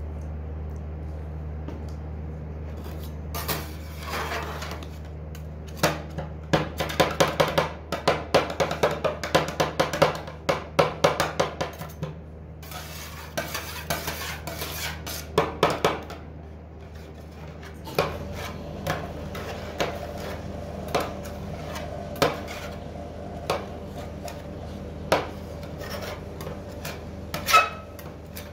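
Metal scrapers chopping and scraping on the steel cold plate of a rolled-ice-cream machine, working fruit pieces into the freezing cream base. A quick run of sharp clacks fills the middle, followed by scattered single taps and scrapes, over a steady low hum.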